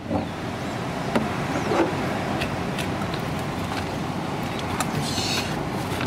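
Steady roadside traffic noise with a few light clicks and knocks, the loudest about one and two seconds in.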